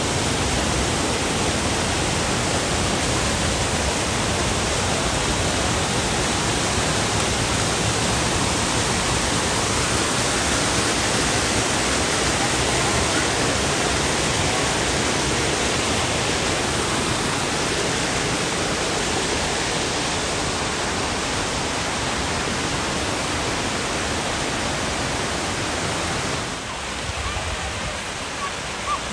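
A steady rushing noise, a little quieter for the last few seconds.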